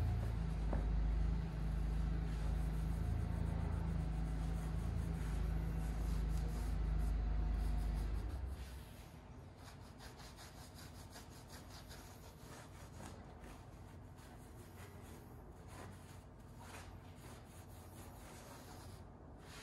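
A cloth rag rubbing and scuffing over the aluminium oil pan and the LT4 engine block's pan rail, wiping off oil. A steady low machine hum runs under it and cuts off abruptly about eight seconds in, leaving only the light rubbing.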